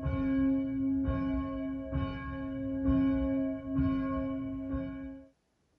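A church bell tolling, struck about once a second, each strike ringing on into the next. The ringing cuts off abruptly about five seconds in.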